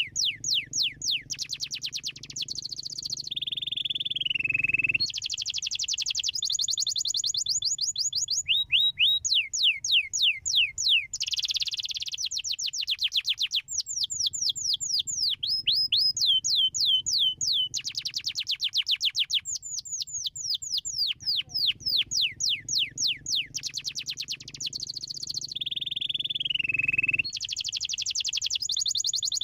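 Domestic canary singing a continuous song of rapid trills, each a fast run of repeated high down-slurred notes. A lower, slower warbling phrase comes about three seconds in and again near the end.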